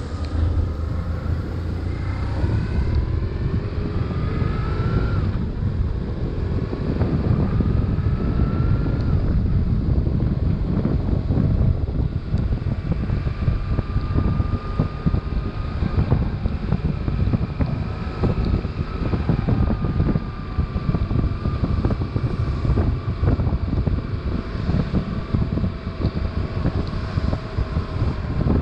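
BMW R1150RT's boxer twin engine pulling away and accelerating up through the gears, its pitch climbing and dropping back three times in the first nine seconds, then running steadily at cruising speed. Heavy wind buffeting on the microphone throughout.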